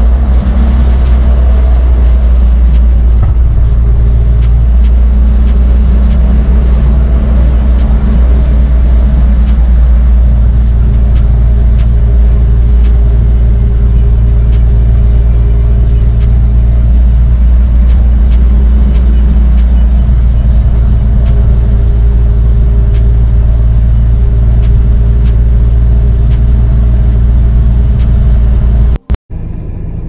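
Nissan 240SX (S14) with a turbocharged KA24DET four-cylinder, heard from inside the cabin under way at a steady cruise: a loud, steady engine and road drone whose pitch steps a few times. The car is running smoothly on a test drive after new ignition coil connectors were fitted. The sound cuts off suddenly near the end.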